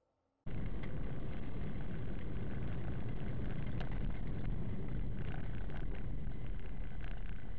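Steady engine and road noise from a moving car, heard inside the cabin through a dashcam microphone, starting abruptly about half a second in, with a few faint ticks over it.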